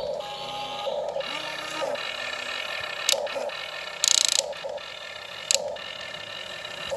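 Small electric motors and plastic gearboxes of a radio-controlled model excavator whining in short surges as it moves, with a couple of sharp clicks and a brief scraping hiss about four seconds in.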